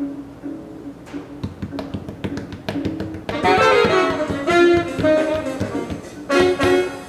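Jazz music: short repeated low notes under sharp drum taps, then a saxophone comes in loud about three seconds in, playing a line that breaks briefly and resumes near the end.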